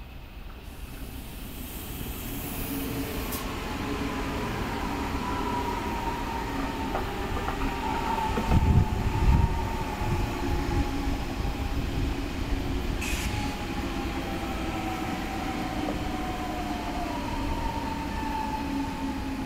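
Two coupled ICE electric high-speed train sets passing at speed. A steady rumble of wheels on rail builds over the first few seconds, with a thin high whine running along it, and there is a louder low buffeting rush about nine seconds in.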